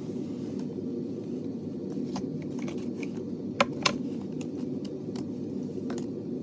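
Small clicks and taps from small plastic items being handled, a handful of them spread out, with two sharper clicks close together about midway the loudest, over a steady low hum.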